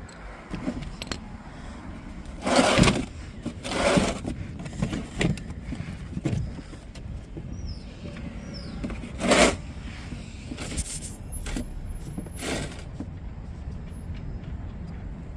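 Handling of a wrench and a long bolt being backed out under a car: several short scrapes and clinks, spaced a few seconds apart, over a steady low rumble.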